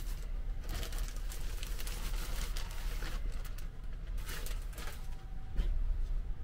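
Thin plastic packaging crinkling and rustling as a pillow is pulled out of its bag and set down on a bed, over a low steady hum.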